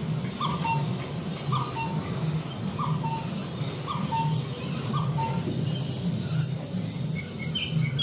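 Animatronic bird exhibit calls: a short two-note bird call, a rising note then a lower one, repeating about once a second over a low steady hum, with a few higher chirps near the end.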